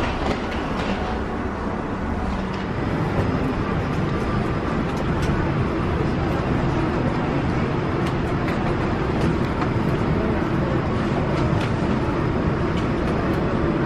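Boarding ambience: a steady rumbling noise in the jet bridge gives way, about three seconds in, to the steady hum of an Airbus A220-300's cabin ventilation, with scattered light clicks and knocks.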